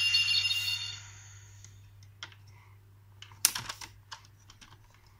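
Taddle Quest Gashat toy's electronic sound effect fading out within the first second. Then scattered light plastic clicks and taps, a quick cluster of them a little past three seconds in, as the toy is handled.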